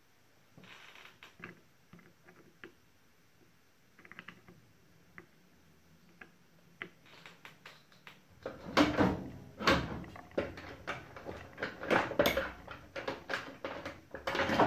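Handling noises on a workbench: a few faint clicks, then from about halfway through a run of louder clicks, knocks and clattering, as of small hard objects being picked up and set down.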